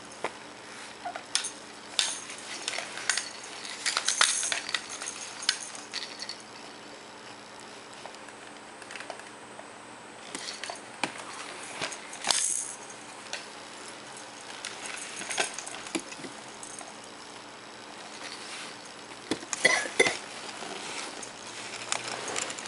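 Scattered light clinks and taps of small hard objects being handled, coming in short clusters with quieter stretches between.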